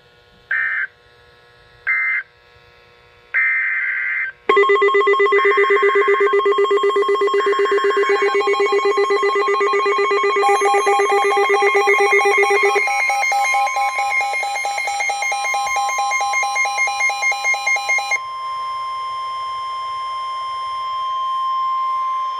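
Emergency Alert System tones cutting in mid-message. First come a few short data bursts of the alert header. About 4.5 s in, a loud, jumbled overlap of several alert tones and more data bursts begins, and about 18 s in it gives way to one steady single tone. The garbled, overlapping tones are the sign of a failed alert relay.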